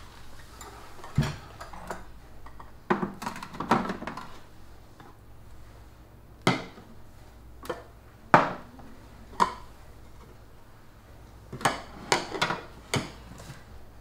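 Ceramic side-dish bowls and a round serving tray knocking and clinking on a table as a banchan meal is set down and arranged: a series of separate clatters, with quick runs of them about three seconds in and again near the end.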